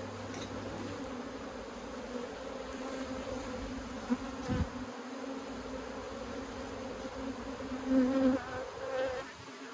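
Honeybees buzzing around an opened hive during a frame inspection: a steady hum, swelling briefly near the end.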